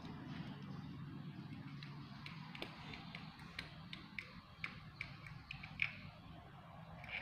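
A kitten gnawing on a hard plastic toy building block: scattered small sharp clicks of teeth on plastic, one or two a second, over a faint steady low hum.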